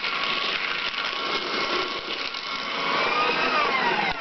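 Electric paper shredder running and shredding paper, its motor whine wavering up and down in pitch as the sheet is pulled through, then starting to wind down at the very end.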